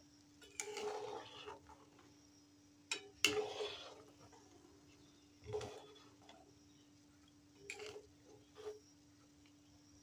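Soup being stirred with a flat metal spatula in an aluminium wok: the spatula scrapes and knocks against the pan in several short spells, while the butter is mixed in. A faint steady hum runs underneath.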